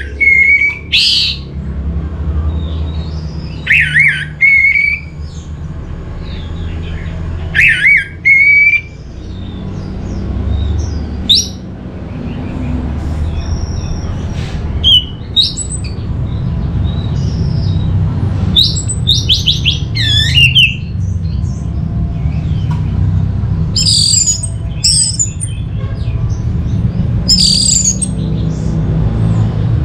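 Orange-headed thrush singing in short phrases of rising and falling notes every few seconds, the later phrases higher and thinner, over a steady low rumble.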